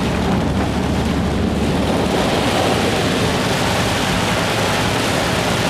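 Steady rushing and washing of water around a car as it drives through deep floodwater, with the engine running underneath.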